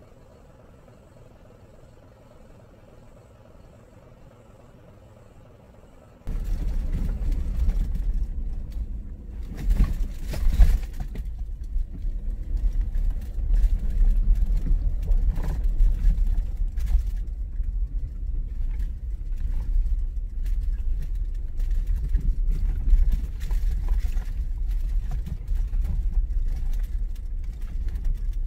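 Faint steady background hum for about six seconds. Then a car driving on an unpaved dirt road, heard from inside the cabin, cuts in suddenly: a loud low rumble with frequent knocks and rattles from the rough surface.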